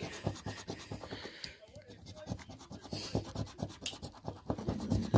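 Scratch-off lottery ticket being scraped in quick, repeated strokes as the coating is rubbed off the play spots, with a short lull a little under two seconds in.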